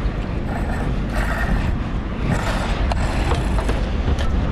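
Fishing reel drag giving line in several short bursts of buzzing as a hooked tuna runs, over a steady low rumble.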